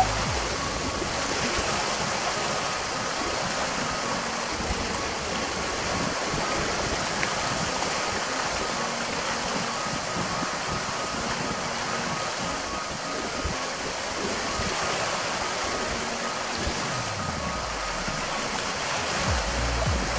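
Steady rushing wash of small waves on a choppy lake lapping against the shore, with wind.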